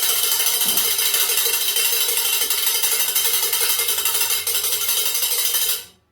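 Spoons played as percussion: a dense, steady metallic rattle of rapid clicks that drops away to silence near the end.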